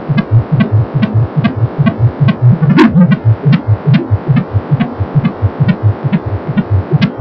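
Unborn baby's heartbeat through a handheld Angelsounds fetal Doppler: a fast, regular pulsing, with a brief louder noise about three seconds in.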